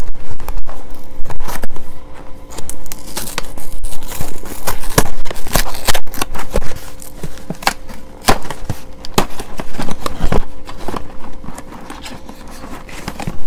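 A cardboard box of dry bow tie pasta being torn open and handled: a dense run of sharp crackles, rips and rustles that thins out after about eight seconds.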